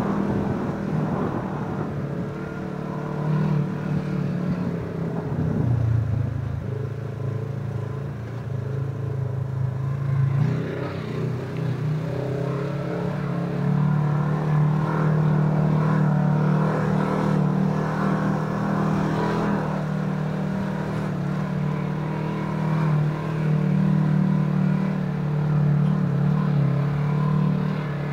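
Side-by-side ATV engine running while driving a rough dirt trail. Its pitch drops about five seconds in and climbs again around ten seconds, then holds fairly steady.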